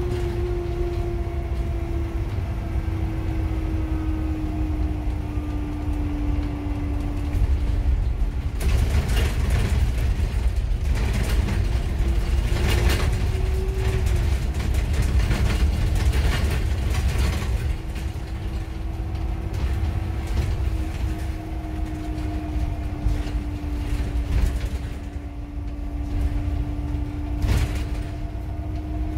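Inside a VDL Citea XLE-145 city bus on the move: its Iveco Cursor 9 diesel and ZF Ecolife automatic gearbox drone, with one steady tone that slowly sinks, rises and levels off with speed. For several seconds in the middle the ride gets louder, with rattling and knocks, then settles back.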